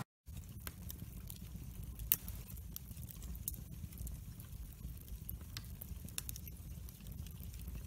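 Wood fire burning in a fireplace: scattered sharp crackles and pops over a steady low rumble of the flames, the loudest pop about two seconds in. A brief gap at the very start.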